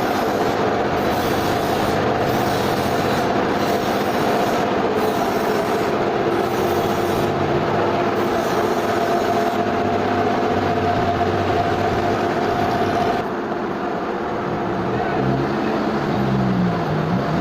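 Sawmill machinery running: a loud, steady mechanical noise with a steady whine. About thirteen seconds in, the whine stops and the noise drops a little, and a wavering low hum comes in near the end.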